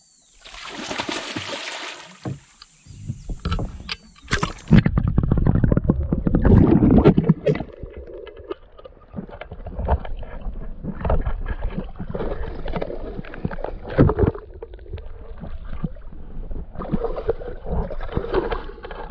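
Water splashing and sloshing around a small boat, with sharp knocks and handling noise against the hull, loudest in the middle and again about two thirds of the way through.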